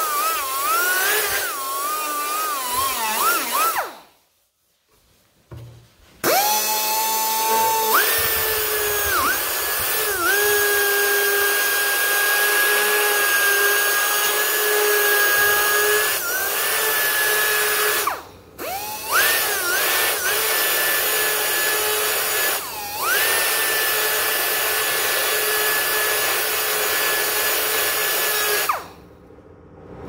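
Power grinder working cured fiberglass: its whine wavers under load at first, then stops. It spins back up about six seconds in and runs steady with brief dips as it bites, stops for a moment at about eighteen seconds, spins up again and cuts off near the end.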